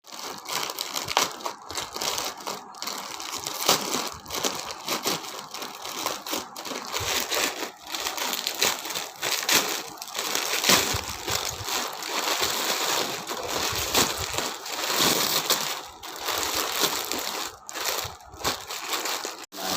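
Parcel packaging crinkling and crackling in a continuous run of rustles as it is handled and unwrapped.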